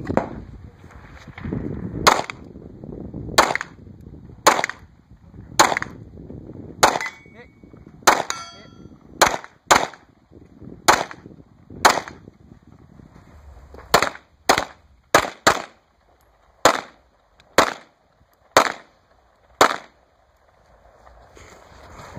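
Gunshots from a firearm being fired through a multigun stage: about eighteen single shots, mostly about a second apart, with a few quicker pairs later on. One shot around the middle is followed by a brief ringing.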